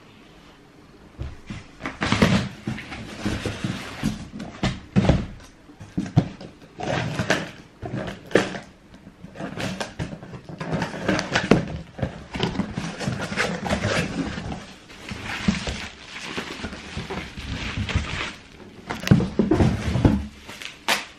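Handling noise of trainers, a cardboard shoebox and packing paper being moved about: irregular rustling with short knocks and bumps, starting about a second in.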